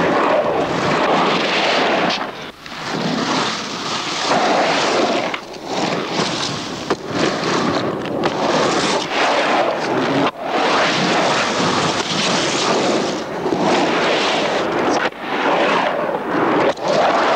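Skateboard wheels rolling on concrete, a continuous rough roar that briefly dips several times.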